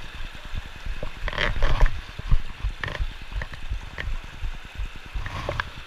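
Shallow mountain creek running over rocks under a rough, low buffeting on the microphone, with several brief sharp sounds scattered through.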